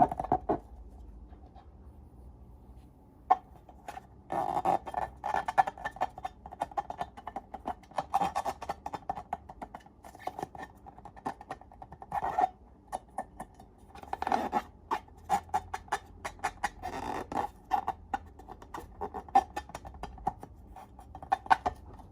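Slime being squeezed and worked by hand: bursts of irregular sticky clicks and crackling pops, with short pauses between handfuls.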